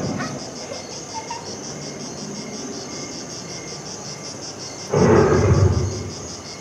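Recorded jungle ambience of chirping insects, pulsing steadily. About five seconds in, a loud, low roar from the animatronic Tyrannosaurus rex's speakers rises suddenly and fades after about a second.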